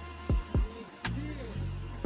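Background music with a deep bass line, two kick drum hits early on and light ticking hi-hats.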